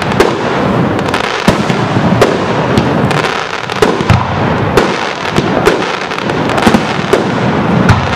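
Fireworks display: a steady run of aerial shell bursts, with sharp bangs about once or twice a second over a continuous crackle.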